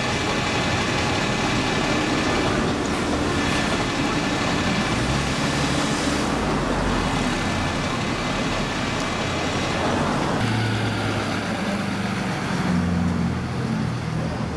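Bus engines running amid passing street traffic, with the hiss of a passing vehicle. From about ten seconds in a bus engine's low note comes up strongly as a single-deck bus draws near.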